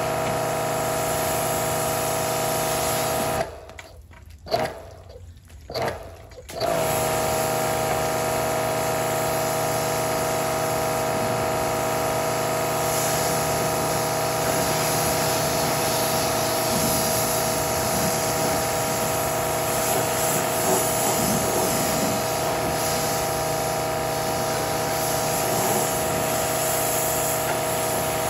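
Electric pressure washer running, its motor and pump making a steady whine under the hiss of spraying water. About three and a half seconds in it cuts out for about three seconds, with two short blips, then starts up again and runs on.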